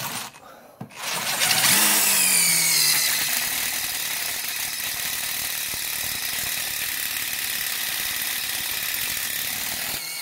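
DeWalt DCF887 impact driver spinning a quarter-inch hex-shank drill bit through 304 stainless steel. It spins up with a rising whine about a second in, then drills steadily for about nine seconds before stopping. At this high speed the bit is getting hot in the stainless.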